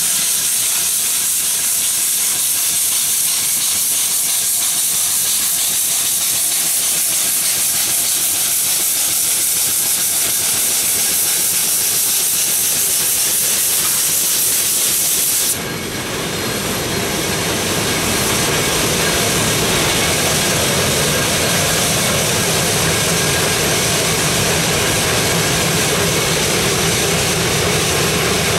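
Mount Washington Cog Railway's 0-2-2-0 cog steam locomotive No. 9 "Waumbek" hissing loudly as it works uphill, with steam blowing from low on the engine. About halfway through the hiss cuts off abruptly, leaving a steadier, deeper running sound.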